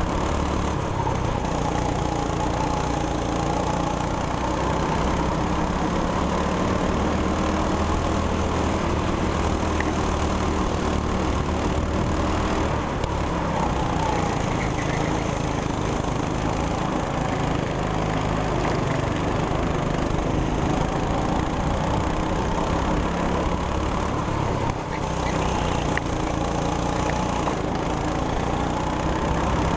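200cc go-kart engine running flat out around the track. Its note rises and falls over the lap as the throttle is worked through the corners.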